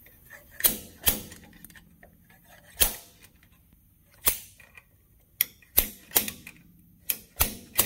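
Small slide hammer jerking against a seized rear axle bearing outer race: about ten sharp metal-on-metal clacks, irregularly spaced and quicker toward the end. The race stays stuck and does not come out.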